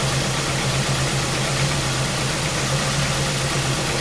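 2001 Ford Focus Zetec four-cylinder engine idling steadily with a constant misfire, as an uneven, wavering idle.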